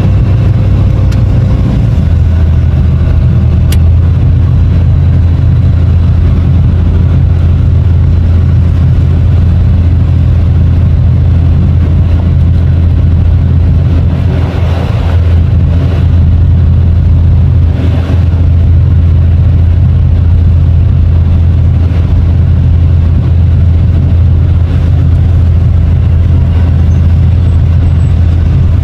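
Long-reach hydraulic excavator's diesel engine running steadily, a loud low drone, with brief rushing swells about 15 and 18 seconds in.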